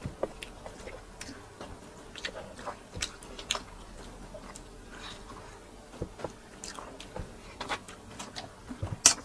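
Close-up eating sounds: chewing and biting into a juicy orange half, with scattered wet smacks and small clicks throughout and a louder cluster near the end.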